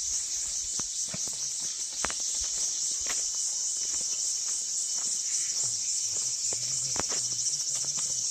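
Steady, high-pitched insect chorus, with scattered footsteps on earth and stone close by.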